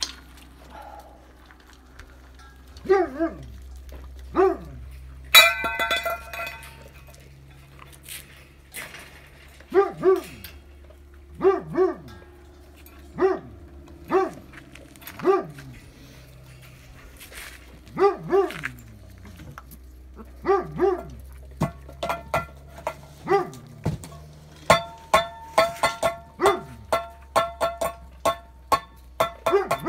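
A dog barking: single barks and pairs every second or two, each bark dropping in pitch, over a low steady hum. The loudest is a sharp, high call about five seconds in. From about twenty-five seconds in, a fast run of clicks with high steady tones joins the barks.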